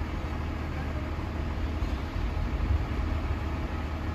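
Diesel engine of a truck-mounted hydraulic boom crane running steadily, a low even drone.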